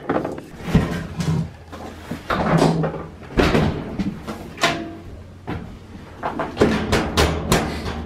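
A series of irregular knocks and clunks from a Whirlpool vertical modular top-load washing machine's cabinet and hinged top panel as the machine is set down and the top is handled.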